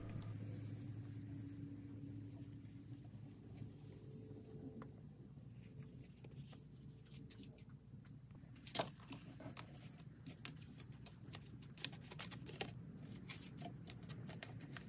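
Faint rustling of thick plastic sheeting being handled, then scattered light clicks and snips from about halfway in as scissors trim the plastic, over a low steady hum.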